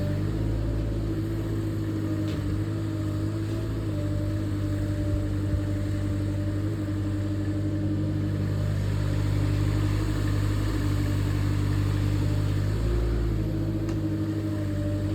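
Diesel engine of a 2-tonne LiuGong mini excavator running steadily, its pitch shifting slightly a few times.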